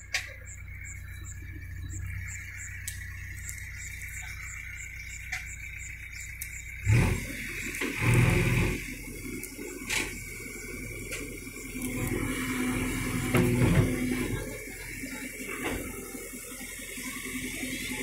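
JCB backhoe loader's diesel engine running while the backhoe arm and bucket work. It is steady for the first several seconds, then surges louder several times from about seven seconds in as the hydraulics take load.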